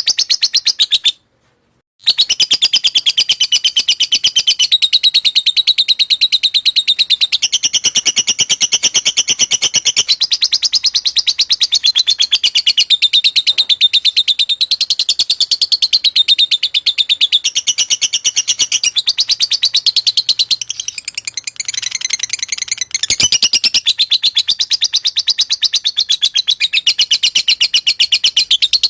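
Lovebird singing a long, unbroken run of very rapid, shrill chirps (the continuous 'ngekek' song). It breaks off for under a second about a second in.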